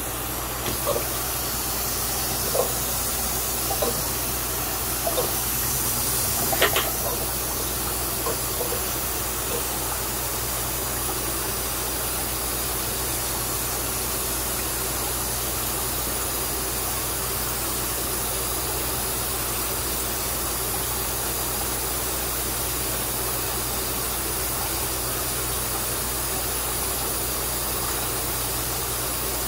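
Steady hiss and low hum of fish-room aeration: an air pump feeding air stones that bubble in a large fish vat. In the first several seconds a few light splashes and knocks come from a plastic bucket being dipped and handled in the water, the sharpest about seven seconds in.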